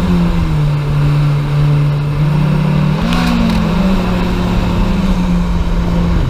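Yamaha jet boat's engines running at speed, their jet pumps churning out a heavy rush of water. The engine note dips and climbs unevenly several times because one jet pump is cavitating, so the two jets give unequal thrust.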